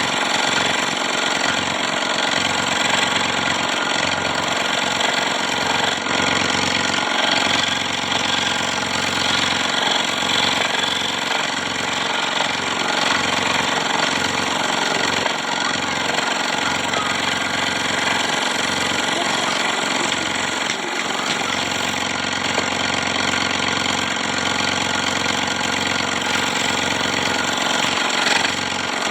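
Electric scroll saw running steadily, its reciprocating blade cutting through wood.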